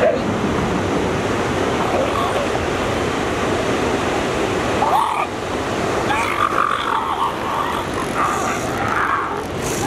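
Steady rushing of surf on the beach, with a few brief voice-like calls over it about halfway through and in the second half.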